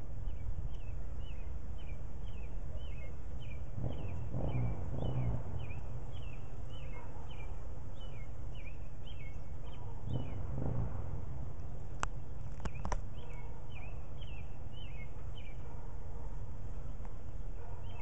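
Carniolan honey bees at a hive entrance, with a buzz passing close by twice, about four and ten seconds in, over a steady low rumble. A bird chirps over and over, about twice a second, through much of it, and three sharp clicks come about twelve seconds in.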